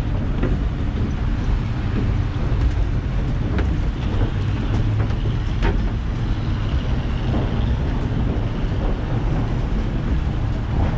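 Steady low rumble of passing vehicles, with scattered clicks and knocks.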